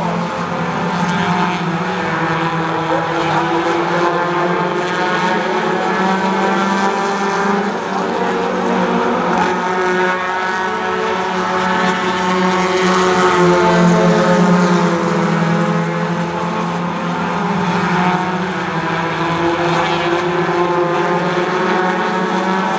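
A pack of small import race cars running laps on a paved oval track, several engines at high revs overlapping. Their pitch rises and falls as the cars go through the turns and pass, loudest a little past halfway.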